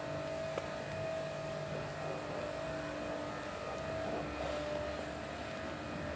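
An engine running steadily with an even hum, its pitch dipping slightly about four and a half seconds in.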